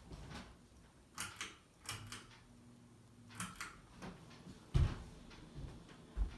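Harbor Breeze Palm Breeze ceiling fan running faintly, just switched to medium speed, with a few scattered sharp clicks and knocks and one louder thump about five seconds in.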